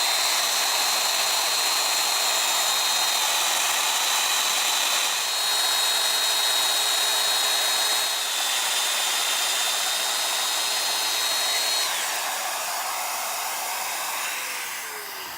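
Festool Domino joiner running steadily with a high motor whine, dipping slightly in pitch twice as it cuts mortises in the leg. It is switched off about twelve seconds in and winds down, its pitch falling as it fades near the end.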